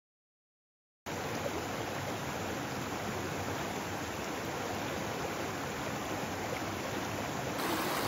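Shallow mountain stream running low over rocks, a steady rushing and trickling that cuts in suddenly about a second in after silence.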